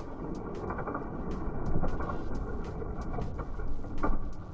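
Diecast toy cars rolling down an orange plastic drag track: a steady low rumble of small wheels on plastic, with light clicks throughout and a louder swell about four seconds in.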